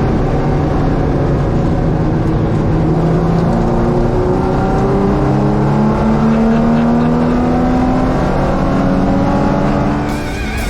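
Ford Capri race car's engine under hard acceleration on track, its pitch climbing slowly through each gear and dropping back at gear changes.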